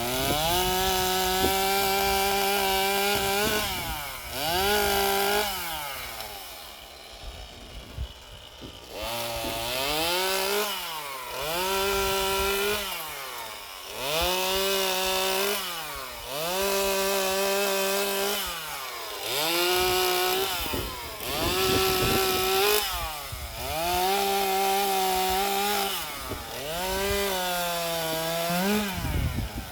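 Stihl MS 150 TC small two-stroke top-handle chainsaw revved up sharply to full speed about nine times. Each time it holds high for one to three seconds, then drops back toward idle before the next rev.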